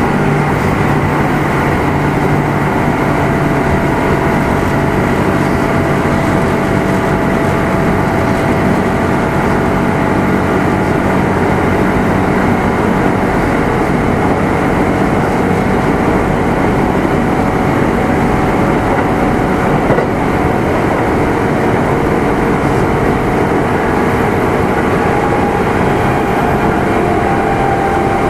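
Running noise heard inside motor car Mo 2669 of a Kintetsu 2610 series electric train at speed: a steady hum from the traction motors over wheel and rail noise. The hum's pitch shifts slightly near the end.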